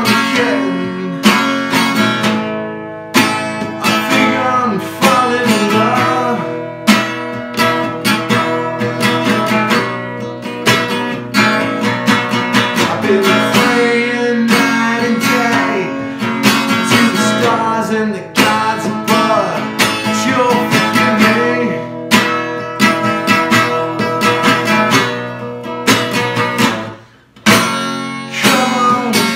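Acoustic guitar strummed in a steady rhythm while a man sings over it. There is a brief break about 27 seconds in before the strumming picks up again.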